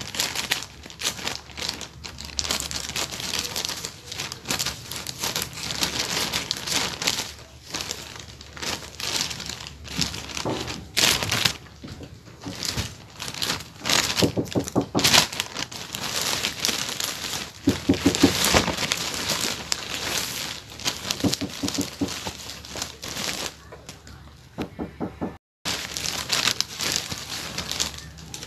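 Plastic courier packaging being torn open and crinkled by hand, an irregular crackling that runs on with a short break near the end.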